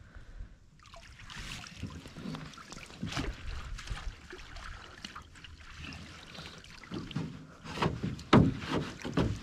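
Wire-mesh muskrat colony trap being hauled up out of marsh water over the side of a canoe: water splashing and dripping, with irregular knocks, the loudest about eight seconds in.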